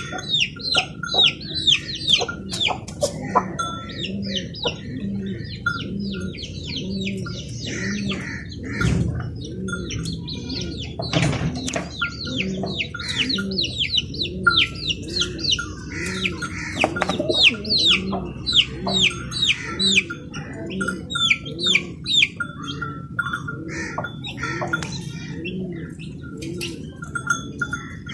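Pigeons cooing in a repeated low rise-and-fall, with a dense layer of quick high chirps from small birds over it.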